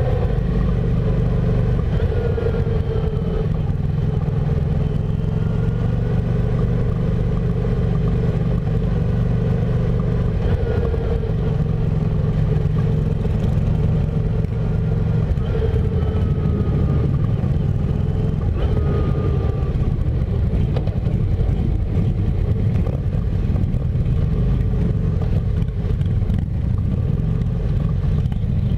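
Motorcycle engine running steadily at low road speed, heard from the bike itself, among other motorcycles, with a few brief rising and falling engine tones from bikes revving nearby.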